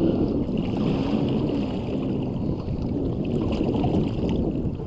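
Wind rumbling on the microphone over water lapping and sloshing against the side of a small boat.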